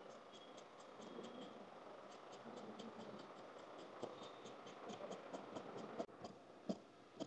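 Tailor's scissors cutting through cotton fabric: a faint, steady rasp of the blades through the cloth, with small clicks several times a second.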